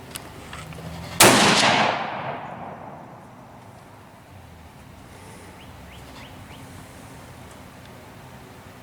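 A single shot from a Remington 700 ADL bolt-action rifle in .243 Winchester, about a second in, with a long echo dying away over about two seconds.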